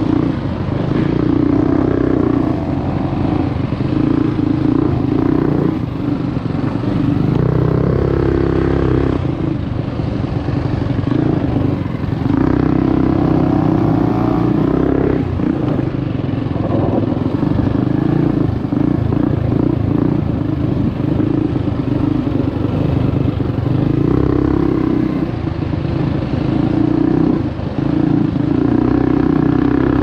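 A Trailmaster MB200 mini bike's single-cylinder Predator 212 Hemi engine running under load on a dirt trail ride, the throttle backing off briefly and opening again several times. Rattle and clatter from the bike over the rough dirt track run underneath.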